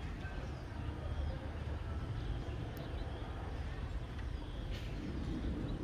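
Steady outdoor city ambience: a low, even rumble of distant traffic over the city.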